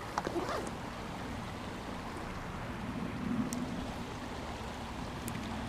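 Steady rushing of water over small stream rapids, with a few faint clicks just after the start.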